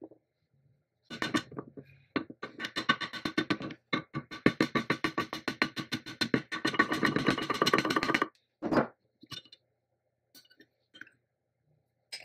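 Brass-faced hammer tapping rapidly on a cast iron vise body, fast runs of metallic blows that ring, with short breaks about 2 and 4 seconds in. The taps stop after about 8 seconds, followed by a few isolated light taps.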